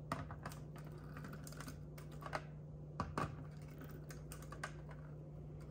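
Pliers tips pressing and prying at a model-train track joint: scattered small clicks and taps at an irregular pace, a couple of them louder about two and three seconds in. The joint is being straightened where the train keeps derailing.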